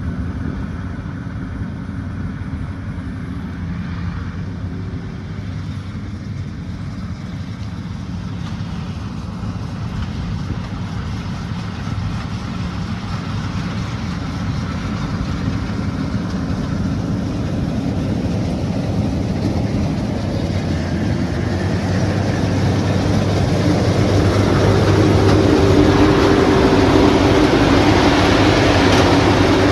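Diesel engine and threshing machinery of a rice combine harvester running steadily, growing louder over the second half, with a steady hum joining near the end.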